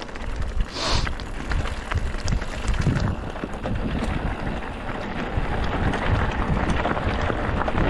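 Mountain bike riding down a rough dirt trail: rumble of tyres and rattling of the bike, with wind buffeting the microphone. A brief hiss about a second in.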